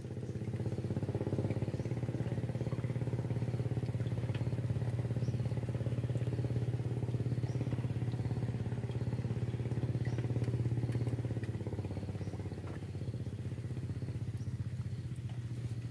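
A small engine running steadily with a fast, even pulse, swelling a little about ten seconds in and easing off after about twelve seconds.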